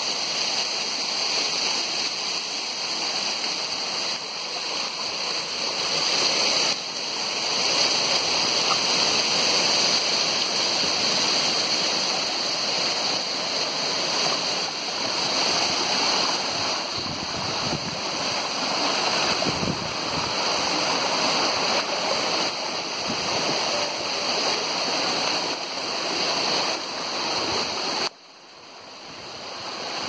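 Steady rush of a tall waterfall pouring down a cliff face. The sound drops away suddenly near the end and returns about two seconds later.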